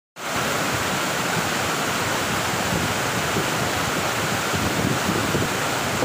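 Tall waterfall crashing down into a rocky stream: a steady, loud rush of falling water.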